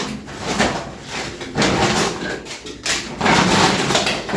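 Plastic shopping bags and packaging rustling as groceries are handled and unpacked, irregular and getting louder about three seconds in.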